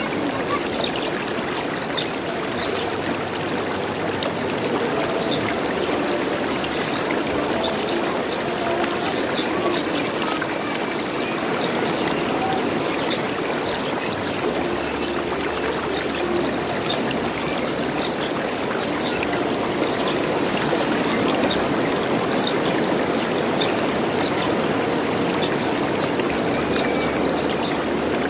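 Running stream water gurgling and trickling steadily, with short high notes scattered all through it.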